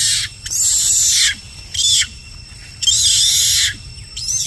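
Macaque screaming in a squabble: about four high-pitched screams in quick succession, each under a second long.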